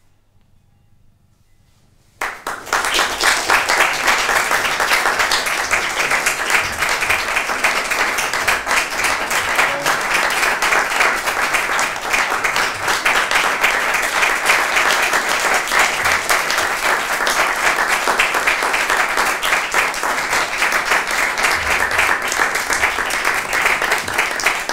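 A short quiet pause, then audience applause breaks out suddenly about two seconds in and keeps up steadily.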